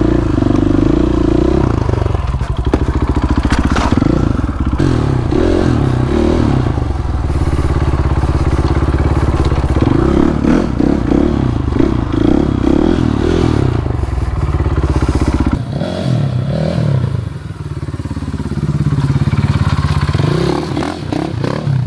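Supermoto motorcycle engine running hard during stunt riding, its revs rising, holding and falling. About three-quarters of the way through the revs drop off briefly, then build again.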